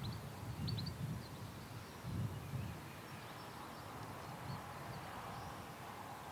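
Small birds chirping in short high notes, several in the first second and fainter after, over wind rumbling in gusts on the microphone that settle after about three seconds.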